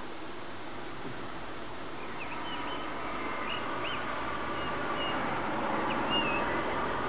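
Common blackbird singing faintly in short whistled phrases, starting about two seconds in, over a steady background rush.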